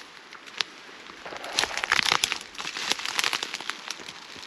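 Dry reeds and grass crackling and rustling as something pushes through them, a rapid patter of small snaps that grows denser through the middle and then thins out.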